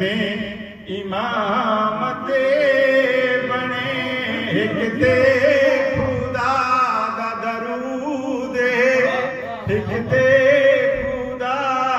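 A man chanting a devotional poem into a microphone, in sung phrases a few seconds long with held, wavering notes and brief pauses between them.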